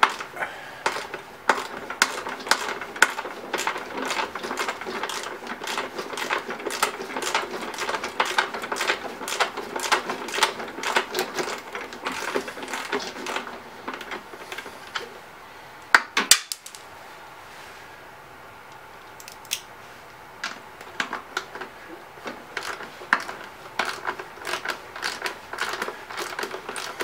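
Ratchet wrench clicking in quick runs as it backs out the bolts holding the recoil starter on a Honda GCV160 mower engine. About sixteen seconds in comes a sharp clack, then a few seconds' pause before the ratcheting starts again.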